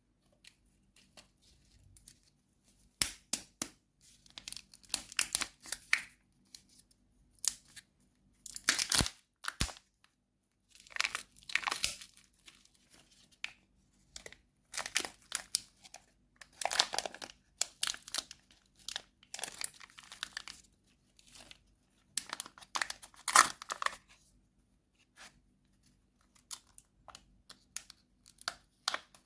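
Candy wrapper being torn open and crinkled, in irregular bursts separated by short pauses.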